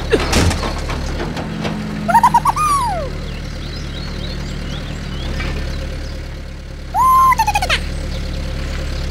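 Small electric toy motor humming steadily, with two short bursts of high, gliding chirps about two seconds in and again about seven seconds in.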